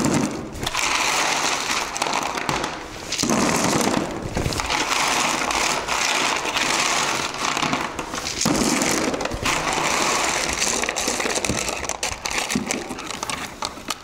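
Small rounded pebbles poured and tipped into a plastic box, clattering against the plastic and against each other in a dense rattle, with several stronger pours along the way.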